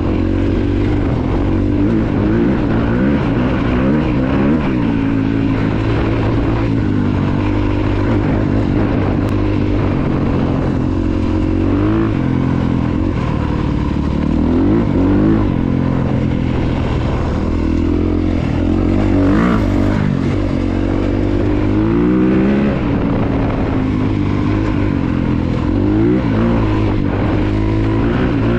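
2022 Honda CRF250RX's single-cylinder four-stroke engine under way, its note climbing and dropping back again and again as the rider accelerates, shifts and rolls off the throttle.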